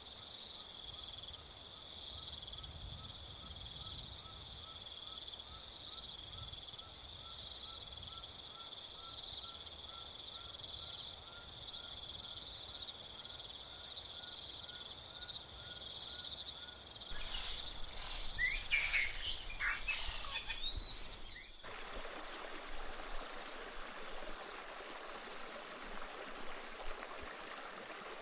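A dense chorus of insects trilling shrilly and pulsing steadily, with a few bird calls about three quarters of the way through. The chorus cuts off suddenly and gives way to the steady rush of a river flowing over stones.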